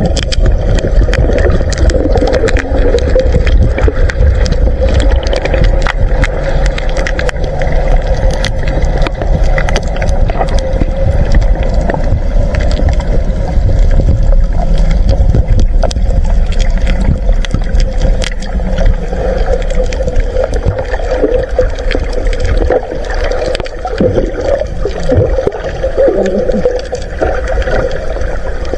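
Underwater sound picked up by a camera held in the sea: a loud, steady low rumble with a constant hum, dense sharp clicks and crackles throughout, and some gurgling of bubbles in the last few seconds.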